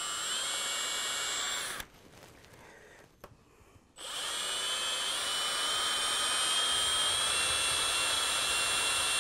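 Cordless drill whining under load as it drills out a rivet in a chainsaw bar's nose sprocket. It runs for almost two seconds, stops, then starts again about four seconds in and runs steadily.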